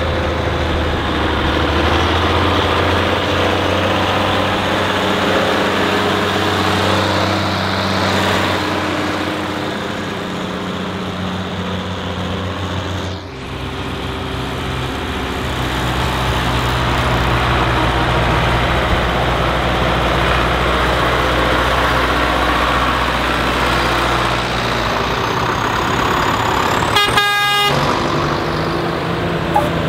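Farm tractor diesel engines running steadily as tractors drive past. A short horn blast sounds near the end.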